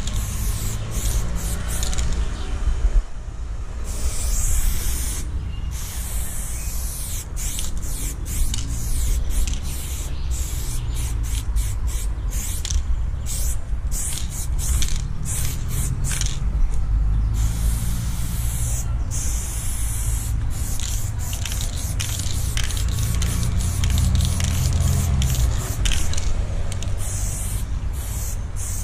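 Aerosol spray paint can spraying blue paint onto a wall, a hiss in many bursts of varying length with short pauses between strokes. A steady low rumble runs underneath.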